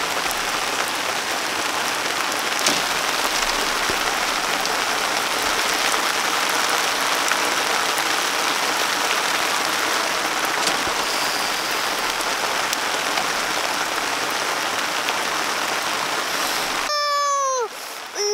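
Steady rain falling. It cuts off abruptly about a second before the end, where a high-pitched voice calls out with a falling pitch.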